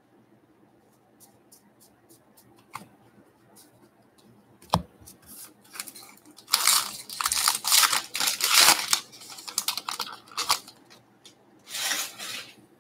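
A baseball card pack's wrapper being torn open and crinkled, in noisy rustling bursts from about six and a half seconds in. Before that come a few light clicks and a sharp tap.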